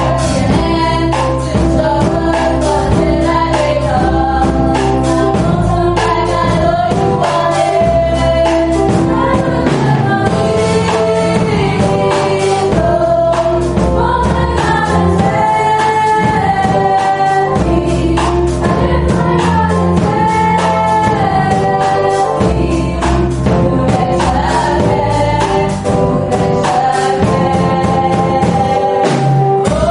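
Choir singing a gospel hymn with instrumental accompaniment and a steady beat.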